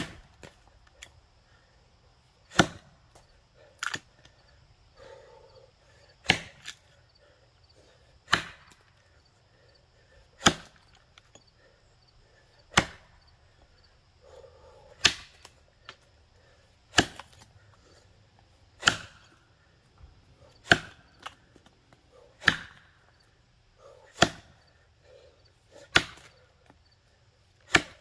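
Axe chopping into a box elder log: a sharp strike about every two seconds, steady and even, about fourteen in all.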